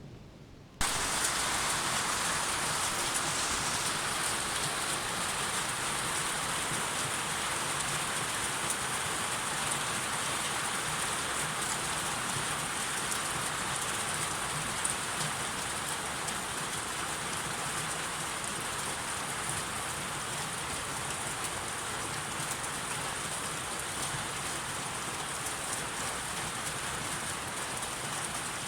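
Steady, heavy rain falling, setting in suddenly about a second in and then holding even.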